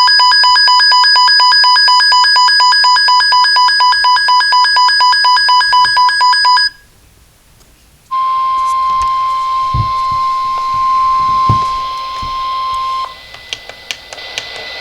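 Weather alert radio alarm beeping rapidly, about four beeps a second, for about seven seconds. After a short gap comes a steady single high tone lasting about five seconds: the NOAA Weather Radio warning alarm tone that signals a warning is about to be read.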